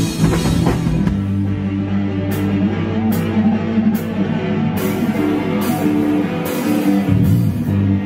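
Rock band playing live on electric guitars with a drum kit. A low bass note is held for several seconds while cymbal crashes come about once a second.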